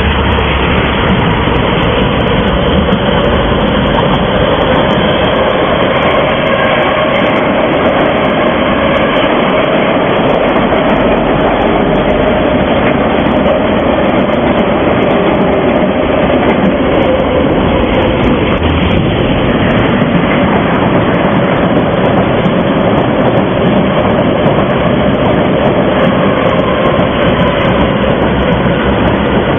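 Moscow metro train running along open-air track: a steady, loud rumble of steel wheels on rail with a constant hum.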